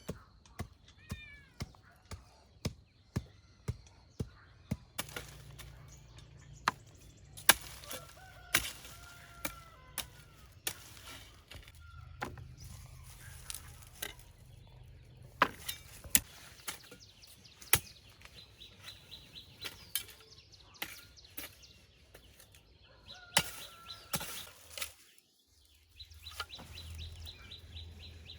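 Repeated sharp knocks from building work, about two a second for the first few seconds, then irregular. Chickens cluck now and then.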